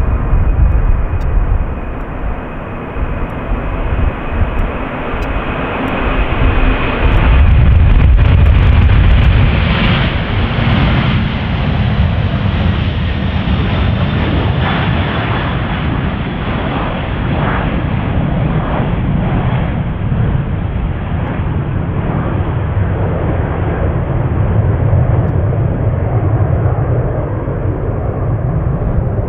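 Passenger aircraft's engines running loud and close, a deep rumble that swells to its peak about eight seconds in and then holds at a slightly lower, steady level. A faint high whine can be heard in the first few seconds before it fades into the rumble.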